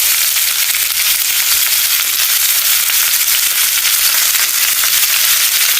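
Spice-marinated prawns frying in hot oil in a pan: a steady sizzle with fine crackling.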